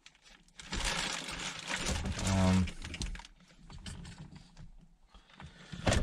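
A long, breathy exhale ending in a short hum, like a sigh. Light clicks and rustling follow for the next few seconds.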